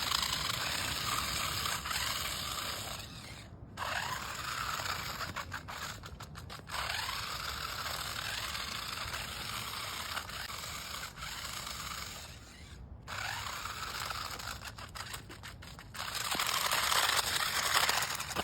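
Toy 4WD RC stunt car's small electric motors and plastic gears whining and rattling as it drives in spurts, the pitch rising and falling with speed. It cuts out briefly three times and is loudest near the end.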